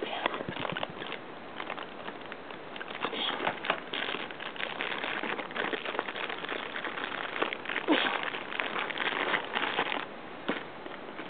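Clear plastic wrapper of a capsule toy crinkling and rustling in the hands as it is opened and crumpled, an irregular run of small crackles that grows louder in two stretches.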